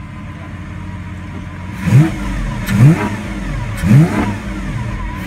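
Lamborghini Aventador SV's V12 idling in neutral, then revved in three short, sharp throttle blips about a second apart, each rising quickly and dropping back to idle. Heard from inside the cabin.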